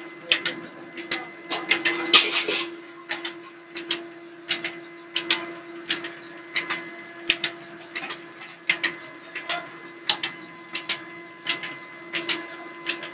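Mustard oil expeller with its 25 hp motor running under load: a steady hum with a sharp knock repeating evenly, about three every two seconds.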